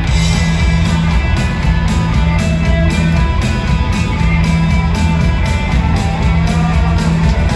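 Live rock band playing an instrumental passage, with guitar to the fore over a sustained bass line and a steady beat, heard in a large arena.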